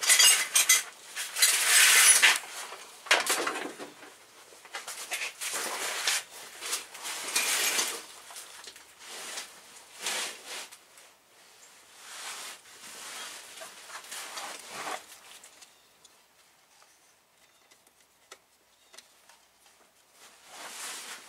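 Handling noise in a car's engine bay while someone searches by hand for the alternator's plug connector: irregular rustles, scrapes and clattering knocks for about fifteen seconds, then only a few faint clicks. The engine is off.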